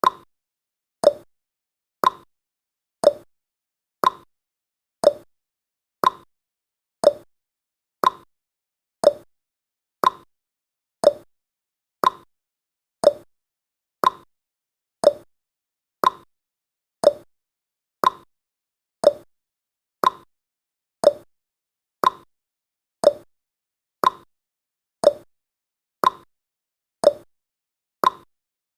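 Countdown timer's ticking sound effect: one short, slightly pitched tick every second, in a steady even rhythm.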